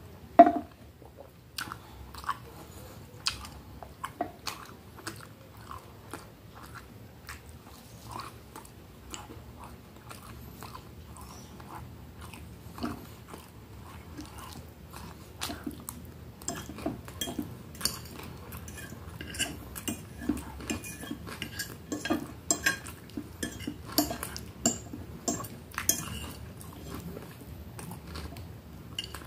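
Close-up eating sounds: a person chewing and biting, with cutlery clinking against a dish. A sharp clink about half a second in is the loudest, and the clicks come more thickly in the second half.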